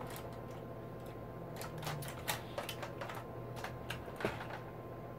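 Light clicks and taps of makeup brushes being picked out of a brush holder, their handles knocking against each other and the pot, scattered irregularly over a steady low hum.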